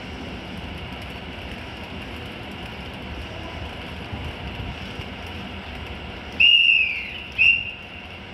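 Two shrill whistle blasts about a second apart, the first longer and sagging slightly in pitch, the second short, over the steady hum of a JR Kyushu 813 series electric train standing at the platform.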